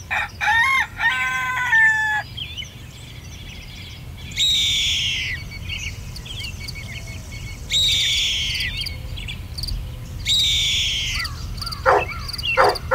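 A rooster crowing once at the start, followed by a bird giving three high, falling calls about three seconds apart, and a few short calls near the end.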